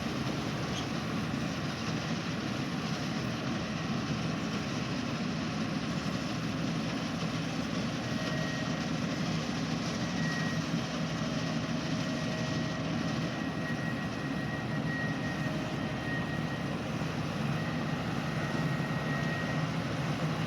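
Track combine harvester running steadily, a continuous low engine-and-machinery drone with a faint high whine that comes and goes from about eight seconds in.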